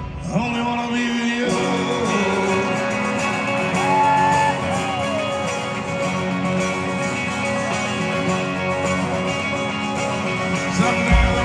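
Live pop-rock band with acoustic and electric guitars playing in concert. The deep bass and drums drop out about a second and a half in, leaving a lighter guitar-led stretch, and the low end comes back near the end.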